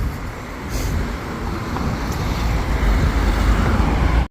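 Road traffic going past, a steady rumble of car and tyre noise that grows heavier near the end and then cuts off suddenly.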